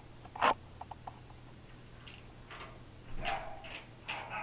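Small lap dogs barking in short yaps, bunched in the second half. About half a second in there is one sharp click, the loudest sound, followed by a few faint ticks.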